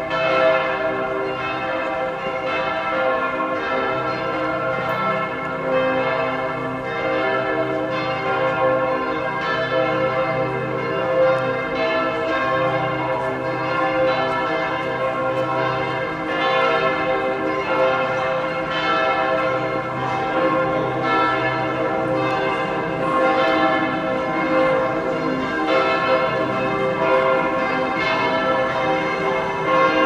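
Several church bells of the Heiliggeistkirche ringing together in a full peal, their strikes overlapping in a continuous ringing.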